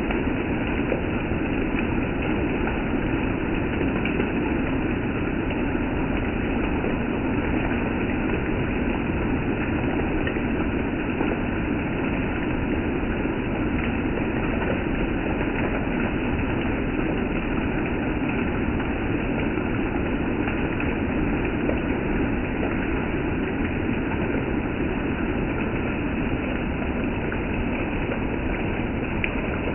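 Steady rain, an even hiss that holds without let-up.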